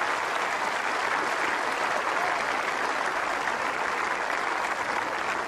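Tennis crowd in the stands applauding, a steady, dense clapping.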